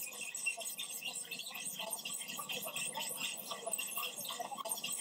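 Background music with a busy texture of many short, high clicks.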